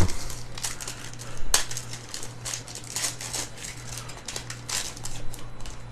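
Foil trading-card pack wrappers crinkling and being torn open while cards are handled: a run of irregular crackles and ticks, the sharpest about one and a half seconds in, over a steady low electrical hum.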